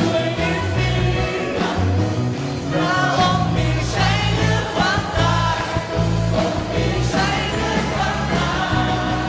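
Live worship band playing: a male lead singer singing through a microphone over drums, guitar and strong bass.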